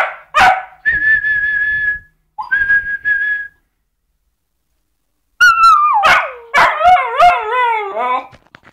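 Cocker spaniel puppy gives a short bark, then two steady whistled notes sound, one about a second long and one shorter. After a pause the puppy lets out a run of drawn-out, howling barks whose pitch wavers and slides down.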